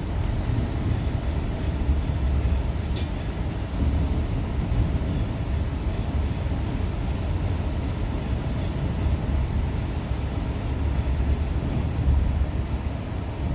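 Passenger train running along the line, heard from inside the carriage: a steady low rumble with faint, regularly repeated light ticks.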